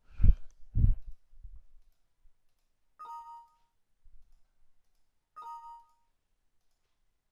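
Two dull low thumps about half a second apart, then two short Windows 7 message-box chimes about two and a half seconds apart as information dialogs pop up.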